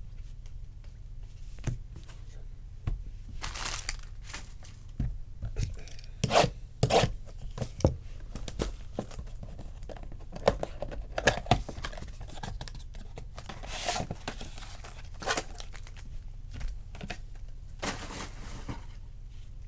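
Bowman Sapphire trading-card pack wrappers being torn open and crinkled, with cards handled in between. The tearing and rustling come in an irregular run of short bursts.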